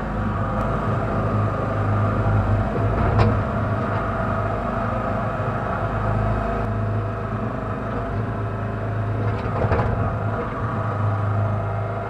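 Engine of a Kellfri towable backhoe running steadily, heard from inside its cab, its low hum swelling and easing as the boom and bucket dig. Two short sharp knocks, about three seconds in and near ten seconds.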